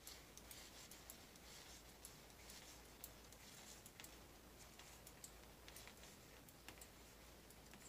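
Faint, irregular light clicks of knitting needles as stitches are slipped from one needle to the other.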